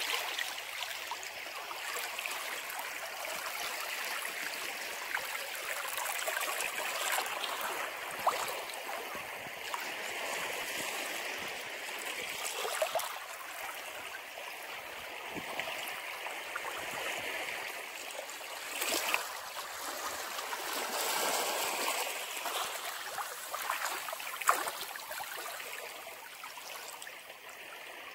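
Ocean waves washing in and running back off the shore, the rush of water swelling and easing every few seconds.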